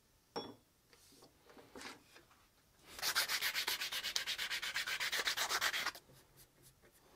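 Hand-sanding of a cocobolo wood axe handle: fast back-and-forth scraping strokes, about ten a second, for about three seconds starting roughly three seconds in. A light click and some faint handling noise come before.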